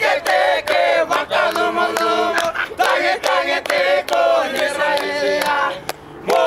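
A group of young men singing together, keeping time with steady hand claps; the singing breaks off briefly near the end and then starts again.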